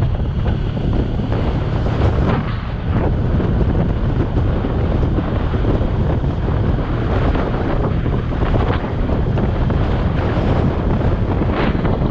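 Wind rushing over the microphone on a moving motorcycle, over the steady low hum of its engine cruising along.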